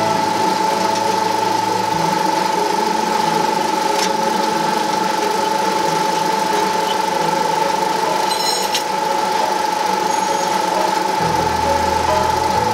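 GreatCity MT6300 noodle-making machine running steadily as dough is fed through its roller pairs: a constant motor hum with a steady high whine over it, and a faint click now and then.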